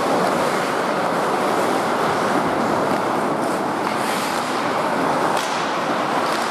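Steady noise of an ice-hockey game in progress in an indoor rink: skates on the ice and arena hum, with a couple of sharp clacks about five and six seconds in.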